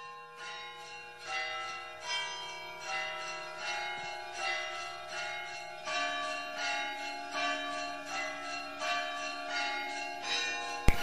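Several church bells of different pitches ringing in a steady pattern, a new stroke about every three-quarters of a second, each tone ringing on and overlapping the next.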